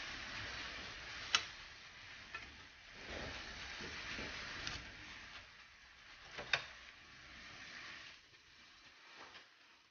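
Chunks of boneless ribeye steak sizzling in a frying pan, the sizzle fading toward the end. A few sharp clicks cut through it, the loudest about a second and a half in and again about six and a half seconds in.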